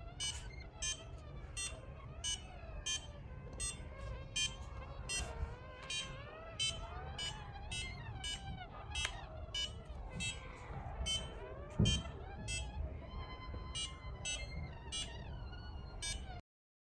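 Arduino-driven passive piezo buzzer giving short, shrill electronic beeps about twice a second, its tone stepping between a few distinct pitches as a hand moves nearer or farther from an ultrasonic distance sensor. The beeping cuts off abruptly near the end.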